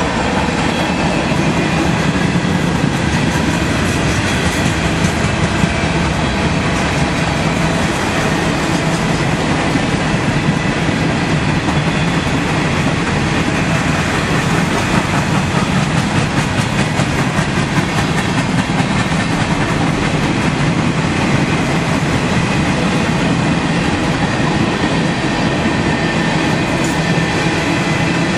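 Freight cars (tank cars and covered hoppers) rolling steadily past: the continuous rumble of steel wheels on the rails, with a fast clickety-clack of wheels crossing rail joints.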